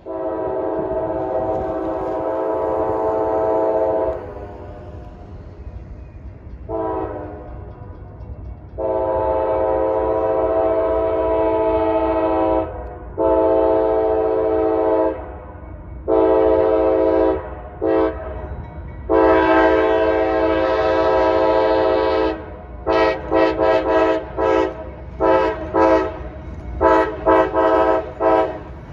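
CSX freight locomotive's air horn sounding repeatedly for road crossings: a long blast, a short one, several long blasts, then a rapid string of short blasts over the last several seconds. Beneath the horn runs the low rumble of the approaching diesel locomotives.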